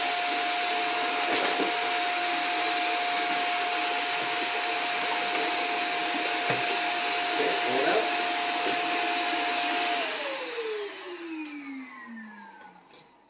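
Upright vacuum cleaner running steadily with a constant whine, its hose sucking the air out of a foil food-storage bag before sealing. About ten seconds in it is switched off and the motor whine falls away as it spins down.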